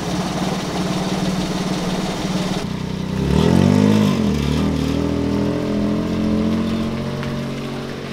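Maruti 800's small three-cylinder petrol engine running as the car drives off, revving up and back down once about three and a half seconds in, then running steadily.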